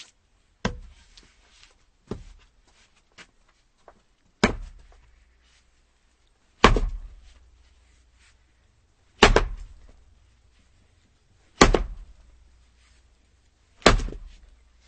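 Axe chopping firewood: heavy blows into the wood roughly every two and a half seconds, each a sharp thwack with a short ringing tail. Two lighter strikes come in the first couple of seconds, and a few small knocks fall between the blows.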